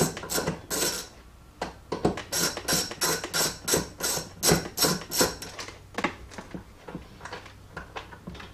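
Hand socket ratchet on a long extension clicking in quick runs as a center-console bolt is loosened. Two dense stretches of clicking give way to fainter, sparser clicks in the last few seconds.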